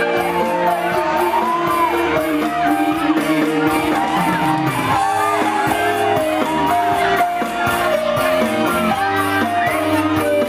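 Live band music with a steady beat and a bending melody line over held notes, with shouts from the crowd.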